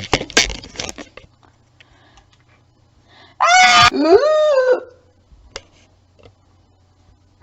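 A few knocks and rustles in the first second, then a child's high-pitched cry or scream about three and a half seconds in, lasting just over a second, its pitch rising and then falling.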